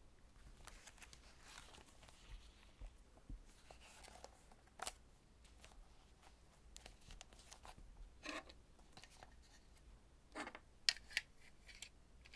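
Faint handling sounds of a notebook cover being closed and fastened with its elastic band: soft rustling and brushing with scattered light taps. Near the end come a few sharper clicks as a small plastic stapler and metal tweezers are set down on it.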